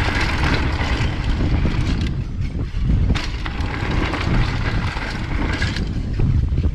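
BMX bike riding fast on a rough downhill track: wind buffeting the microphone over tyre and frame rattle, with uneven bumps throughout.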